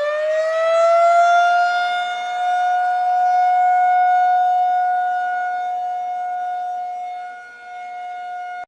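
Outdoor civil defense warning siren near the top of its wind-up, its pitch finishing the climb in the first second or so and then holding one steady wail. Its loudness slowly swells and fades, dipping near the end. It is sounding the alert for a severe thunderstorm warning.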